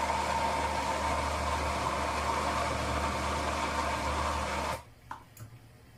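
Electric blender running steadily on oleleh bean batter, then switching off sharply about five seconds in, the batter now blended smooth.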